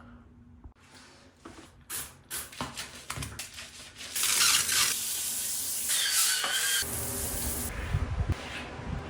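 Scattered knocks and clicks, then, about four seconds in, a loud hiss of spraying water lasting about three seconds, followed by a lower rumbling wash of water.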